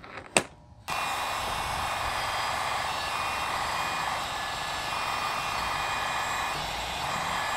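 Electric heat gun switched on about a second in, then running steadily with an even rush of air and a faint motor whine, blowing hot air onto a bent plastic tip of a car door panel to soften and straighten it.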